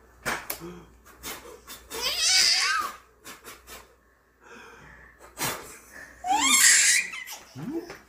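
A man blowing strong puffs of air, 'poo-poo-poo', at a baby, twice, with the baby laughing and squealing.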